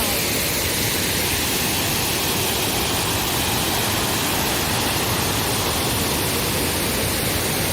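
Steady rushing roar of a waterfall on the River Mellte, even and unbroken.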